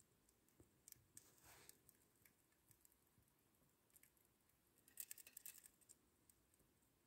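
Russian dwarf hamster crunching on a dried worm: faint, crisp clicking bites in short clusters, with a short run about a second in and a denser, louder run about five seconds in.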